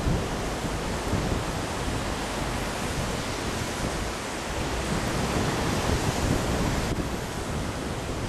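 Wind buffeting the microphone in an uneven low rumble, over a steady rush of wind and surf breaking on the shore.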